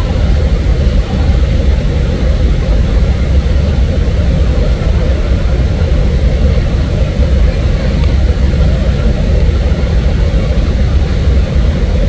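Waterfall water rushing: a loud, steady, deep rushing noise with no breaks.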